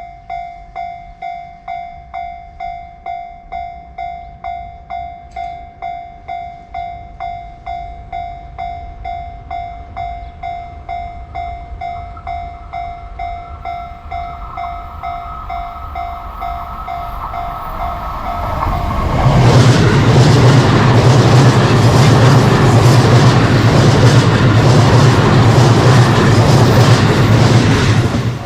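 Japanese railway level-crossing warning bell ringing at about two strikes a second, fading under the rising noise of an approaching train. About 19 seconds in, a Limited Express Azusa train passes the crossing close by, loud with rail noise and a low hum, and cuts off abruptly near the end.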